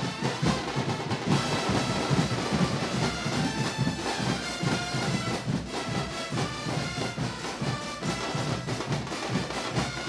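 A symphonic wind band playing together with football supporters' bass drums: trumpets and trombones carry the tune over a steady drum beat.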